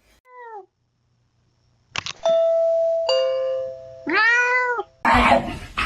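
A cat gives a short falling meow, then a doorbell chimes two held tones, a higher then a lower ding-dong. The cat meows again, a long rising-and-falling meow over the ringing second tone.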